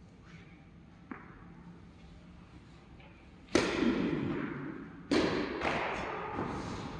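Tennis ball struck hard by a racket twice, about a second and a half apart, each sharp hit followed by a second or so of fading noise.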